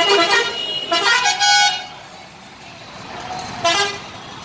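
Bus horn honking three times: two longer blasts in the first two seconds and a short one near the end, over steady bus-stand traffic noise.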